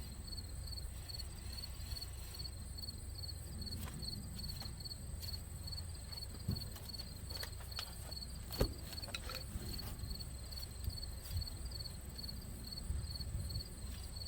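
Insects chirping in a steady, evenly pulsing high-pitched rhythm, with a few faint clicks of tools or parts being handled and one sharper knock a little past halfway.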